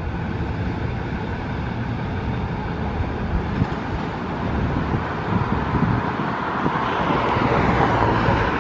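Fire engine's diesel engine idling steadily, getting somewhat louder and brighter in the second half.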